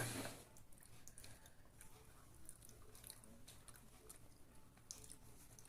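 Faint chewing with small scattered clicks of food and mouth.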